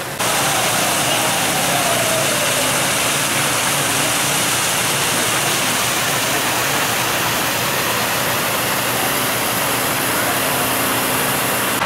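Floodwater being pumped out of buildings and gushing from the open end of a fire hose onto the pavement: a loud, steady rush, with an engine running underneath.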